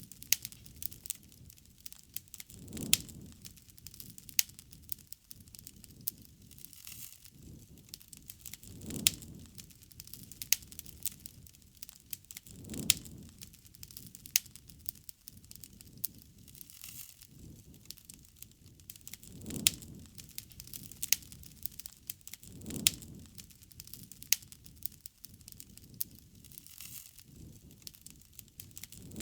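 Campfire burning: wood crackling and popping in irregular sharp snaps, with a soft low rushing swell every few seconds.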